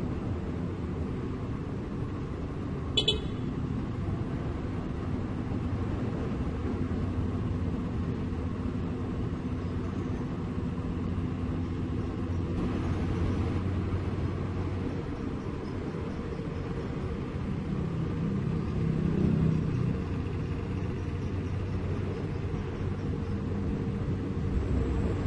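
Diesel engine of a Doosan DX225LCA crawler excavator running steadily under load as it tracks up the tilted steel deck of a self-loader truck. A brief metallic clank comes about three seconds in, and the engine swells briefly about three-quarters of the way through.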